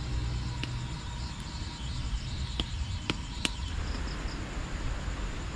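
Strong wind buffeting the microphone with a low rumble, insects chirping steadily, and about five sharp snaps in the first three and a half seconds; from about four seconds in, a rustling hiss of leaves in the wind.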